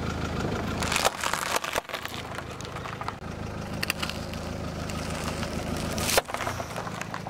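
A car tyre crushing Kellogg's Chocos cereal packets, a run of sharp crackling crunches about a second in, over a car engine idling. Near the end the tyre flattens a gold foil tube of confetti, which gives one loud sharp crack as it bursts.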